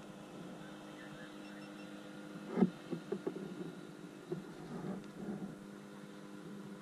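Steady low hum with a sharp knock about two and a half seconds in, followed by a scatter of lighter clicks and knocks, as a handheld action camera on a floating grip is handled aboard an inflatable kayak.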